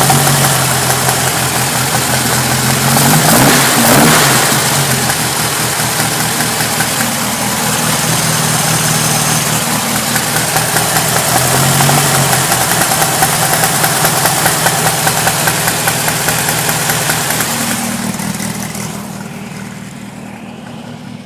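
Volkswagen engine with a Kadron carburettor running with a rapid ratatat rattle of unknown cause. It is revved briefly about three seconds in and lightly again around twelve seconds, and grows quieter near the end.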